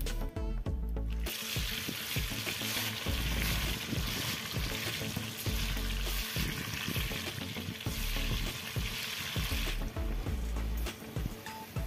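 Hot oil sizzling and bubbling hard as spice-coated vegetable slices deep-fry in an iron kadai. The sizzle comes in about a second in and eases off near the end, with background music underneath.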